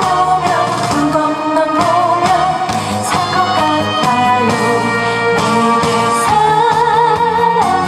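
A woman singing into a microphone over a backing track, amplified through the stage PA, holding wavering notes with vibrato.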